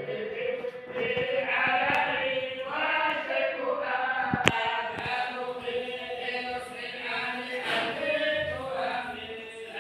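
A group of voices chanting together in unison, a continuous unaccompanied recitation. One sharp click about four and a half seconds in.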